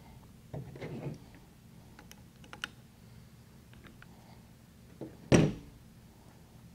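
Light clicks and knocks of an FX Impact air rifle and a wrench being handled on a tabletop while a pressure gauge is worked loose. A single much louder knock about five seconds in.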